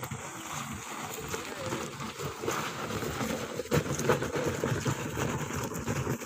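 Large tractor tyre dragged on a rope across dry, stony dirt, a continuous rough scraping, louder around four seconds in.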